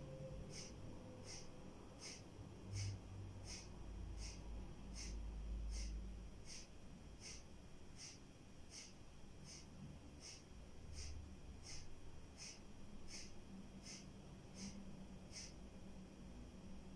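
Kapalabhati pranayama breathing: short, forceful exhalations through the nose, each a brief faint hiss, at a steady pace of about three every two seconds. The puffs stop shortly before the end.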